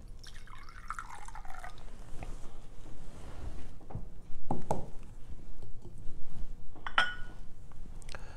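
Wine poured from a small glass cruet into a chalice for about a second and a half, its pitch falling as it runs. Then come a couple of knocks as the glass cruet is set down on the altar, and near the end a sharp glass clink.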